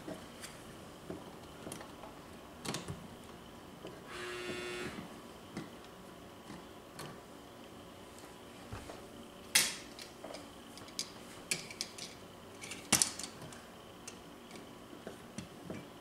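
Scattered clicks and clacks of metal switch straps and switches being handled in a wall switch box, the two sharpest a few seconds apart past the middle. A brief buzz lasting about a second comes about four seconds in.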